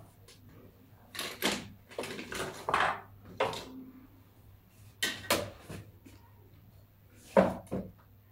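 Assorted small objects on a heap clinking, knocking and clattering as they are picked up and set down, in a string of short separate clatters with quiet gaps between them.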